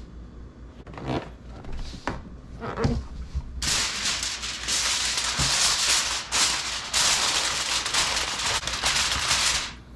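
Aluminium foil crinkling and crackling loudly as a sheet is pulled out and pressed down over a disposable foil roasting pan. It starts a little over a third of the way in and stops just before the end, after a few softer handling sounds.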